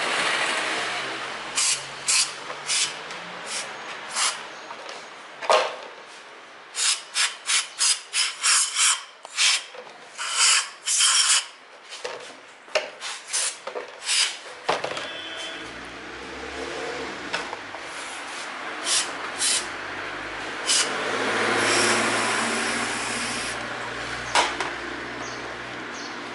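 Aerosol carburettor cleaner hissing in short squirts through its straw, with a bristle brush scrubbing black carbon grime off an aluminium throttle body; a quick run of bursts comes in the middle.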